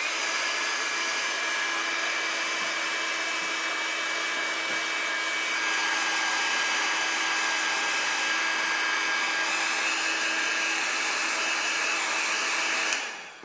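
Embossing heat tool blowing hot air steadily onto a phone screen: an even fan rush with a few faint steady whining tones, cutting off near the end.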